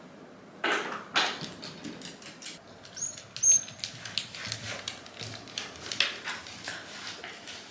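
Shiba Inu crying at being left behind by its owner: short whimpers, two brief high-pitched squeals about three seconds in, and a run of quick light taps.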